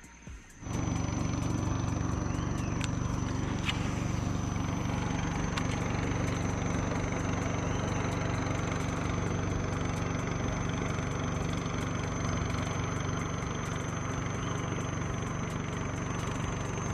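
Small boat's outboard motor running at a steady speed, coming in abruptly just under a second in and holding an even, low drone.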